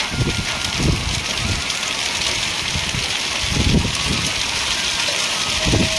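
Heavy rain mixed with hail pelting a flat concrete roof, a loud, steady hiss. Gusts of storm wind buffet the microphone with low rumbles now and then, strongest near the middle and near the end.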